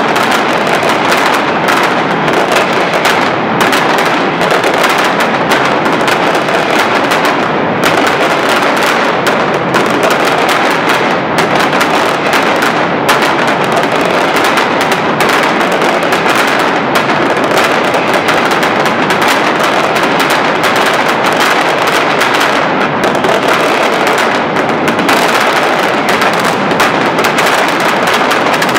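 Mascletà: a loud, unbroken barrage of firecrackers (masclets) going off in rapid succession, the bangs so close together they merge into one continuous crackling din.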